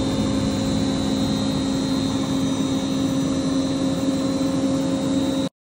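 Milling machine running steadily, a low hum with a thin high whine over it, cutting off suddenly near the end.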